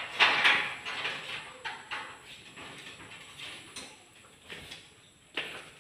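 Aluminium sliding window with bronze-tinted glass panels being pushed along its track: a series of short scraping slides and knocks, the loudest just after the start.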